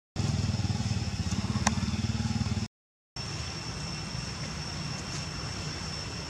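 A loud, low rumble with a fine rapid pulse that cuts off abruptly after about two and a half seconds. After a moment of silence, a quieter steady background hum follows. A thin, steady high-pitched whine runs through both.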